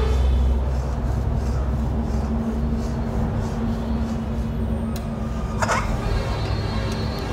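A spatula stirring and scraping thick, reducing milk in a metal kadhai as it cooks down into khoya, over a steady low rumble. A short, sharper scrape comes about five and a half seconds in.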